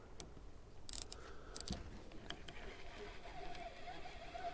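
A few sharp clicks and rattles from a line-counter baitcasting reel being handled on its rod, the strongest about a second in and again shortly after. A faint wavering tone sets in from about three seconds in.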